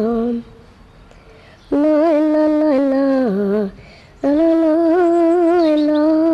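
A high voice humming a slow lullaby in long held, wavering notes. One phrase ends about half a second in, a second runs from nearly two seconds to under four and steps down in pitch at its close, and a third begins just past four seconds.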